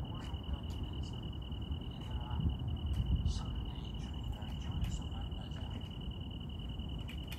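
An insect trilling steadily at one high pitch without a break, over a low rumble on the microphone, with a few scattered small clicks.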